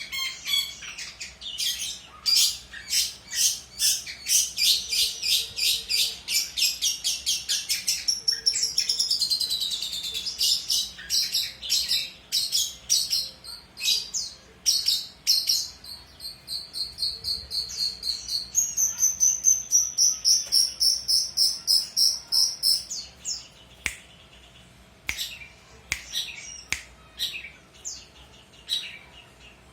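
Long-tailed shrike singing at length: fast runs of sharp repeated notes, a falling run partway through, and a long held high trill, thinning to scattered notes near the end.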